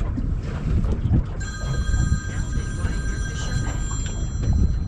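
A mobile phone's ringtone rings for about two and a half seconds, starting about a second and a half in, as several steady tones at once. Wind buffets the microphone underneath.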